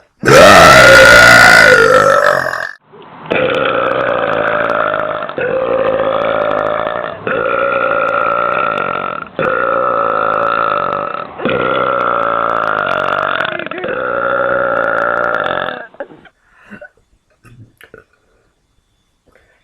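A woman's extremely loud, deliberate air-swallowing burp, lasting about two seconds. It is followed by a long, duller-sounding train of about six burps in close succession, each about two seconds long.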